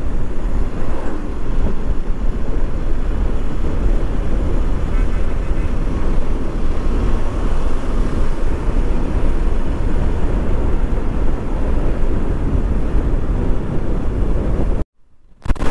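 Steady wind rush on the microphone over motorcycle engine and tyre noise while riding at highway speed. It cuts out suddenly for about half a second near the end.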